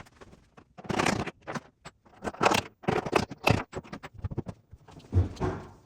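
Irregular scraping and rubbing strokes with a few sharp clicks, from hand work on a wooden interior door.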